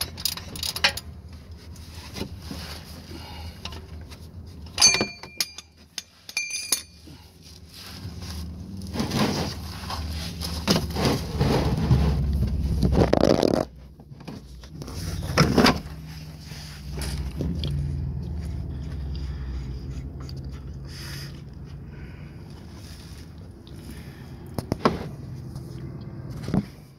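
A wrench scraping and clinking against the canister oil filter housing cap of a 2010 Toyota RAV4 as the cap is worked loose, in irregular clicks and scrapes with louder stretches near the middle.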